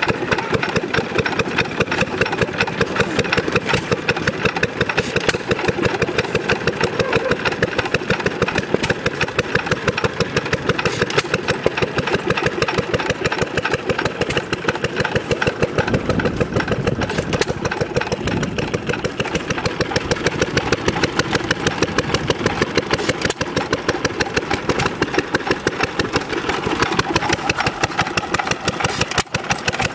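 Several antique single-cylinder stationary engines with heavy flywheels running together, a steady overlapping beat of exhaust strokes; a deeper running sound joins about halfway through.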